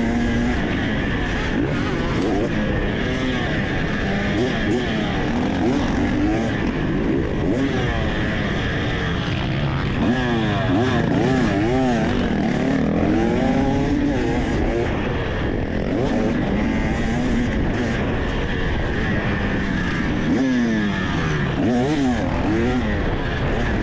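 Fuel-injected single-cylinder two-stroke engine of a 2023 KTM 300 XC dirt bike being ridden hard, its revs rising and falling over and over through throttle blips and gear changes.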